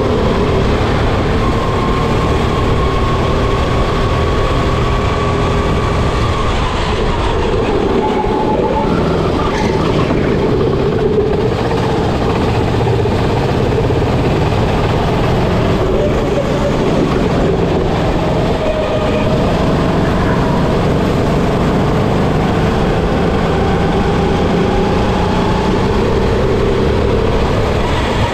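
Kart engine at racing speed heard from the driver's seat, its note dropping and rising again through the corners over a steady rush of noise.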